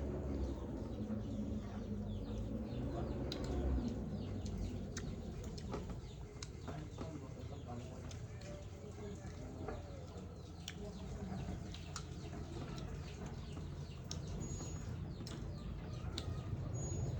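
Chickens clucking and other birds calling in the background, with scattered small clicks and knocks throughout.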